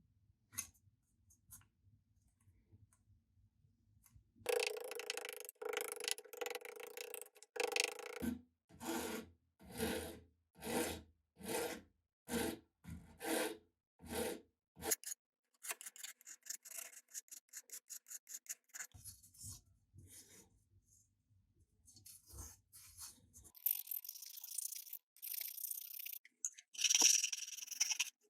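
Abrasive hand strokes rubbing on an old fencing saber during restoration. A steady stretch comes first, then about ten even back-and-forth strokes a little under a second apart, then quicker short strokes, and a higher, hissing stretch near the end.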